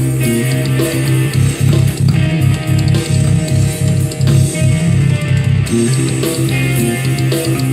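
Electric bass guitar, a white Jazz Bass-style instrument, played with the fingers: steady low notes with a stretch of quick repeated notes through the middle, over rock music.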